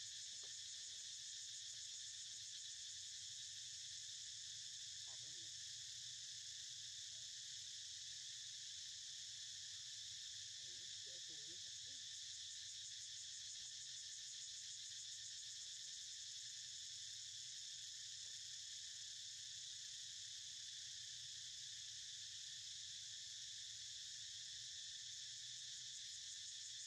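Steady, high-pitched insect chorus with no pauses, with a few faint short sounds about five and eleven seconds in.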